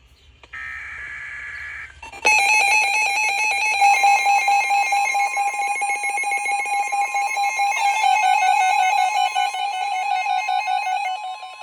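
Emergency weather alert signals: a short burst of digital header data, a screech lasting about a second and a half. Then comes a loud electronic alert tone, pulsing rapidly and steadily, with a thin steady tone beneath it. The alert tone drops in level near the end.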